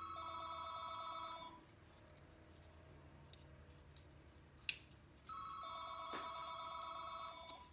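Telephone ringing twice: each ring is a phrase of about two seconds made of a few steady tones that step down in pitch, the second starting about five seconds in. One sharp click comes between the two rings.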